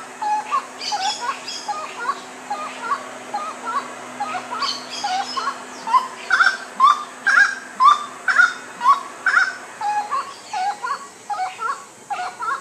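Gray-cowled wood rail calling: a long rhythmic series of repeated notes, about two a second, getting louder about halfway through.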